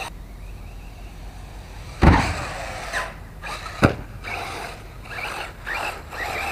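Whine of an RC buggy's brushless electric motor (a 2150kv motor on a 4S battery) in short revving bursts that rise and fall. Two sharp knocks come about two seconds in and about four seconds in; the first is the loudest sound.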